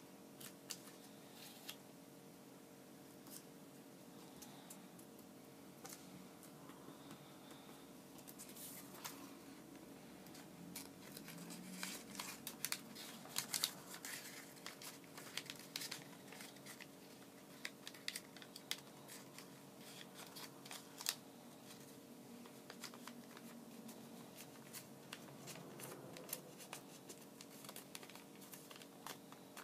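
A sheet of origami paper being folded and creased by hand: faint crinkles and sharp little crackles, busiest in the middle, over a steady low hum.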